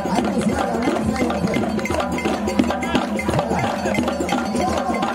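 Live traditional West African percussion music: drums and sharp, wood-like strokes in a fast, steady rhythm.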